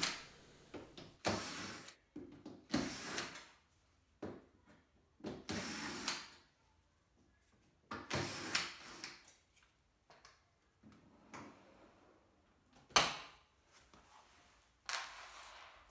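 Cordless drill-driver running in short separate bursts as it backs screws out of a dishwasher door. A sharp knock about thirteen seconds in.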